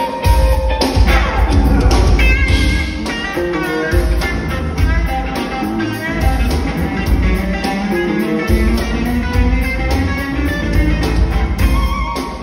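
Live band playing an instrumental break: an electric guitar lead with bending notes over drums and bass, loud.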